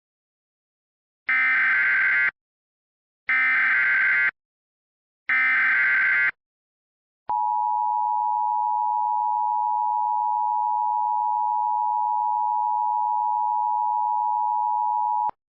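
Emergency Alert System tones: three one-second bursts of warbling SAME header data, a second apart, then the EAS two-tone attention signal held steady for about eight seconds and cut off sharply. This is the signal that announces an emergency alert broadcast.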